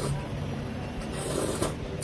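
Electric fan humming steadily. About a second in there is a short slurp of noodles and chewing, ending in a click.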